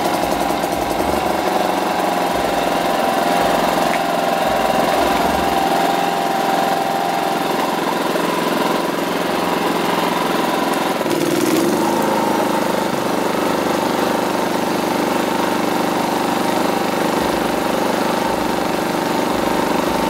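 WAKITA HPG2300is inverter generator's small gasoline engine running steadily. About eleven seconds in, an 800 W heat gun is switched on as a load: the engine speed drops for an instant, then the governor brings it up to a higher, steady speed, with the heat gun's blower running alongside.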